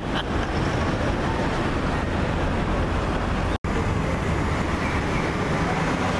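Steady low rumble of city traffic and an elevated railway, with no clear single event. The sound cuts out for an instant about three and a half seconds in, then the same rumble carries on.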